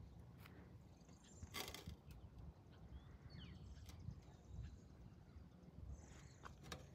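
Near silence: faint outdoor background with a low rumble, one soft knock about a second and a half in, a few light clicks and a couple of faint high chirps around the middle.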